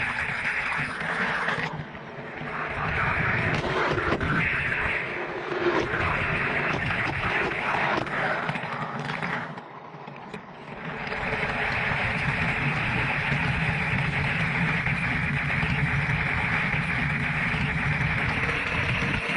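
Toy car's plastic wheels rolling and rattling at speed along an orange plastic track, a steady rumbling rattle. It turns briefly quieter about ten seconds in, then picks up again.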